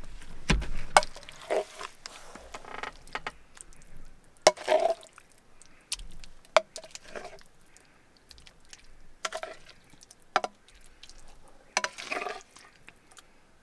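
Metal spoon scraping and knocking against a stainless steel pan as a thick, wet stew is spooned out onto plates, with irregular clinks and soft wet plops of food.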